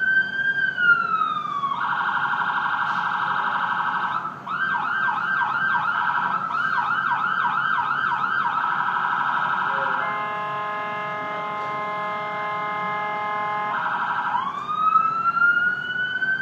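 Ambulance siren cycling through its patterns: a slow rising and falling wail, then a fast warble, then quick repeated yelps about twice a second. Around ten seconds in it switches to a steady, horn-like held tone, and near the end it goes back to a rising wail.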